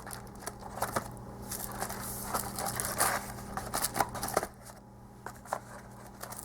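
Small product boxes being handled and turned over: scattered light taps, clicks and rustles over a faint steady hum.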